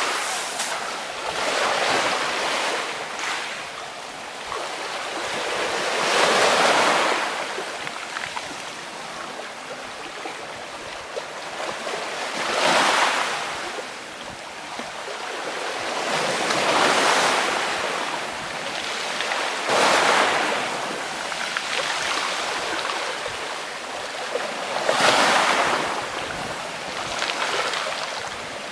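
Black Sea waves breaking on the shore, about six surges swelling and falling back every three to six seconds over a steady wash of surf.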